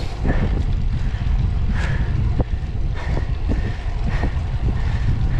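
Wind buffeting the action camera's microphone as a road bike rides along at speed: a steady low rumble with scattered light ticks.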